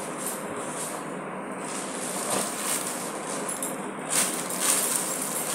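Plastic packaging rustling and crinkling as a wrapped pack of diaper pants is handled and pulled from a bag, loudest in short bursts about two and four seconds in, over a steady background hiss.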